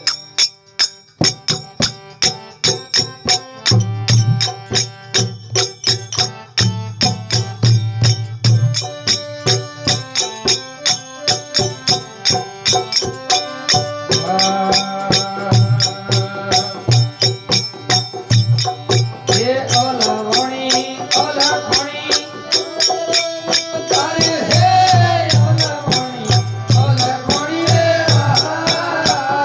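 Bhajan accompaniment of dholak drum and manjira hand cymbals playing a quick, steady beat, over held melodic notes. In the last third a wavering melodic line comes in on top.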